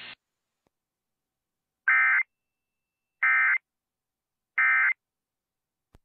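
Emergency Alert System digital data tones, three identical short warbling bursts about a third of a second each and about 1.3 s apart. This is the end-of-message signal that closes the broadcast severe thunderstorm warning.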